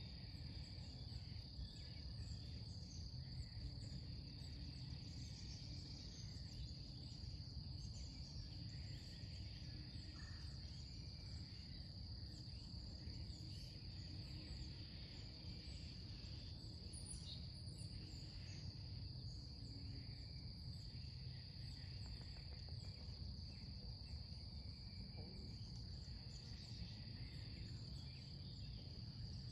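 Summer outdoor ambience: a steady, high-pitched insect chorus of crickets over a low, even background rumble.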